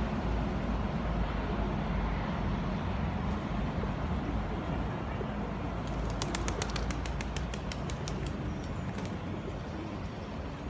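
Flock of pigeons feeding, with a quick run of sharp wing flaps from about six seconds in, over the steady rush of a flowing river.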